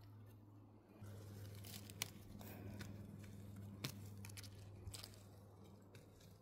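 Faint tearing and crunching of hands picking black mushrooms out of moss, with a few sharp snaps, over a low steady hum.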